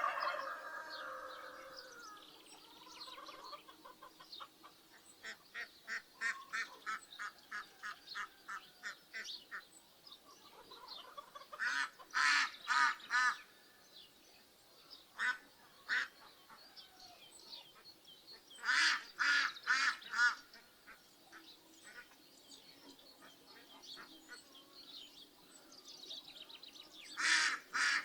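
Farmyard geese and ducks honking and quacking in three loud clusters of four or five calls. Between them comes a steady run of shorter calls, about two and a half a second. A rooster's crow trails off at the very start.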